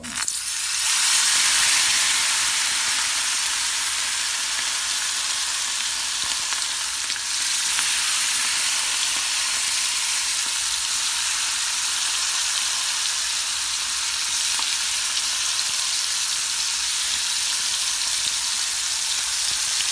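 Masala-coated anchovies (netholi) going into hot oil in a pan: a sudden loud sizzle that swells over the first second or two, then settles into a steady frying hiss.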